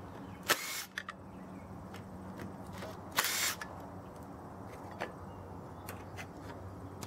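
Makita 18V cordless impact driver run in two short bursts, about half a second in and again around three seconds in, undoing the fasteners on a lawn tractor engine's flywheel.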